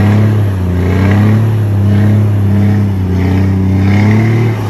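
Scania truck's diesel engine held at high revs during a burnout, its rear drive tyres spinning on the pavement. The engine note is loud and steady, wavering slightly in pitch.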